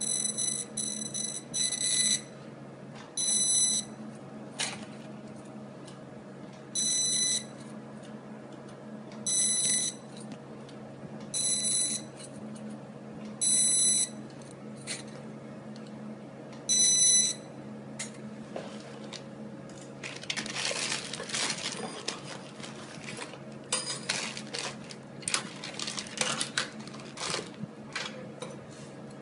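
A high-pitched electronic beep sounds eight times, each about half a second long, at uneven gaps, over a steady low machine hum. From about twenty seconds in the beeps stop, and gold bangles clink and rattle as they are handled.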